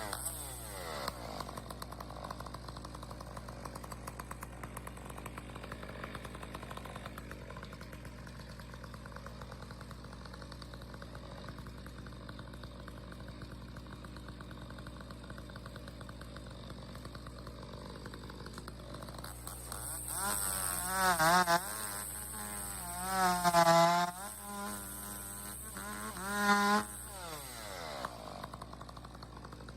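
Chainsaw idling steadily, then revved up three times in short bursts, its pitch wavering up and down during each rev, before dropping back to idle.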